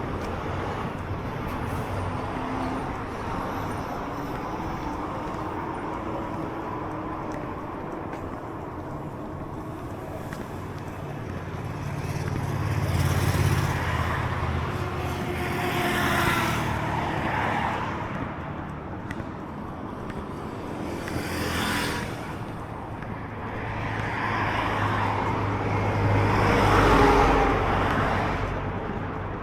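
Roadside traffic: a steady wash of road noise with several vehicles driving past one after another, four passes in all, the loudest near the end.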